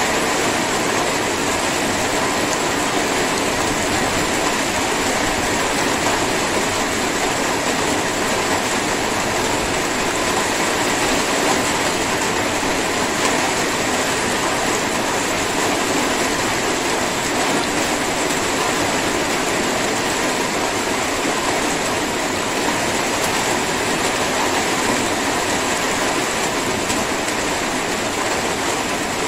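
Steady drizzle: an even, unbroken hiss of light rain falling.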